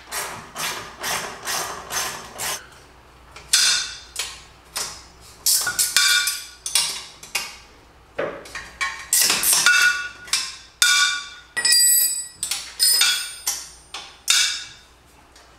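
Hand wrenches clinking and knocking on the turbo flange bolts and exhaust metal as they are worked loose: an irregular string of sharp metallic knocks, some ringing briefly.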